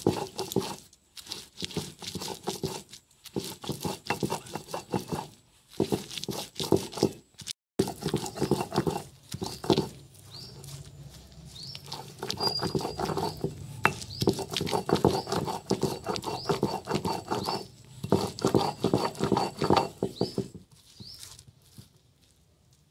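Stone roller rubbed rapidly back and forth on a flat grinding stone (sil-batta), crushing wet roselle into chutney paste: quick runs of grinding strokes with short pauses, quieter near the end.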